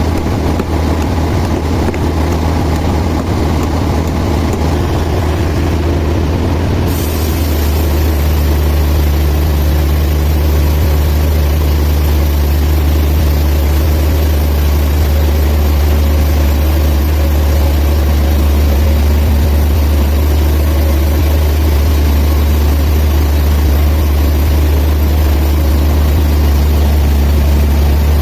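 Band sawmill running with a steady, loud, low machine drone. About seven seconds in the sound shifts and grows slightly louder, and a high hiss joins it.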